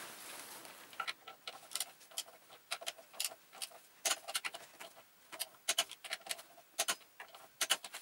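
Ratchet of a torque wrench clicking in short irregular runs of sharp clicks as the front brake caliper bolts are tightened.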